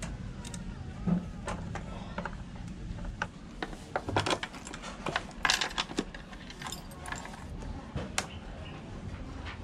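Metal clinks, rattles and small knocks of hand tools and screws as motorcycle body panels are unfastened, irregular and busiest about midway.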